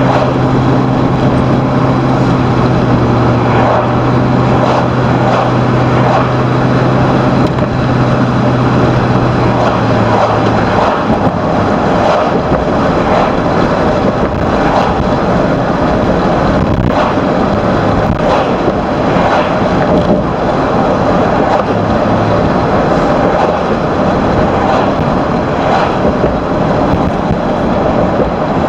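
Steady road and engine noise inside the cabin of a moving car, with wind rush. A low, steady engine drone underneath stops about ten seconds in.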